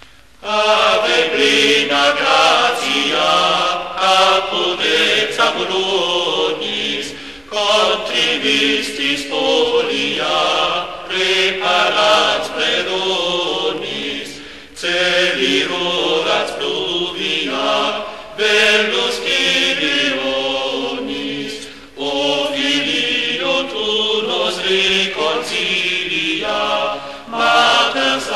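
Choir singing sacred choral music in several parts, starting about half a second in and moving in phrases with short breaks between them.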